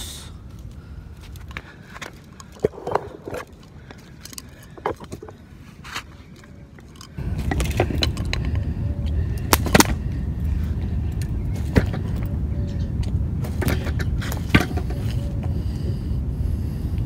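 Scattered clicks and scrapes from a landing net and its metal pole being handled on stone paving. About seven seconds in, a steady low rumble starts suddenly and continues under the clicks.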